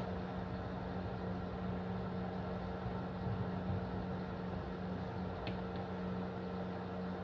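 Steady low electrical or mechanical hum, with one faint click about five and a half seconds in.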